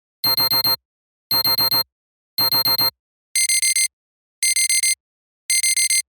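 Modern digital alarm clock beeping in quick groups of four, about one group a second. A little over three seconds in, the sound changes to a thinner, higher-pitched alarm beep with the same four-beep rhythm.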